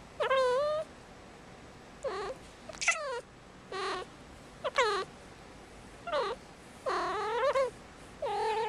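Young female kitten in heat calling: a run of about eight short meows, several falling in pitch, with the longest call near the end.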